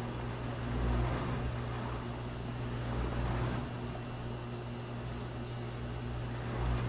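A steady low hum under a faint rushing noise that swells a little about a second in and again about three seconds in.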